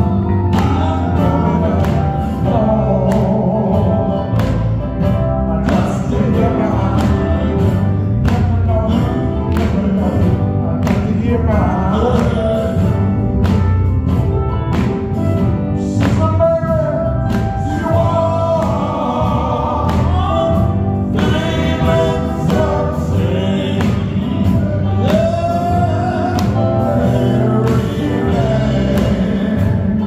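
Live amplified gospel quartet music: a male lead voice singing over electric guitar and a steady beat.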